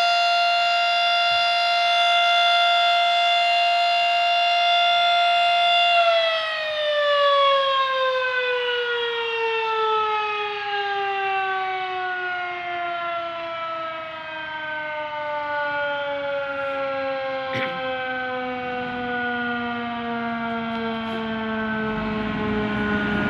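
Mechanical siren held at one steady high pitch for about six seconds, then let go and winding down slowly in pitch, still sounding low near the end.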